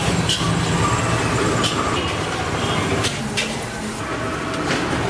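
Steady low rumble of street traffic and vehicle engines, with a few short clicks scattered through it.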